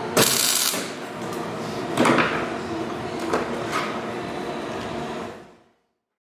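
Bangs and scraping of metal parts being handled, with two longer harsh bursts and a couple of short knocks over a steady low hum, then the sound fades out to silence.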